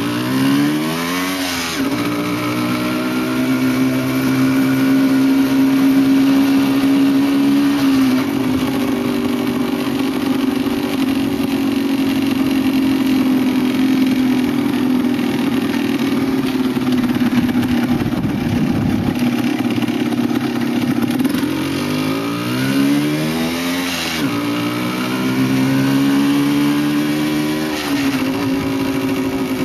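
Motorcycle engine running under way, its pitch rising with the revs and dropping back several times as the bike speeds up and slows.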